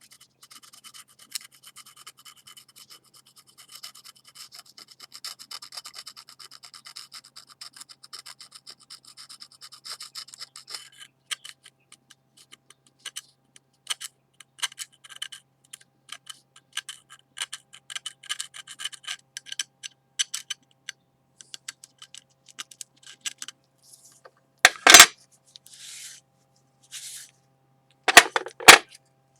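Scraping strokes on a ceramic plate, taking off excess urushi lacquer from a kintsugi repair little by little. About ten seconds of steady fine scratching give way to scattered single strokes, and two loud knocks or rubs come near the end.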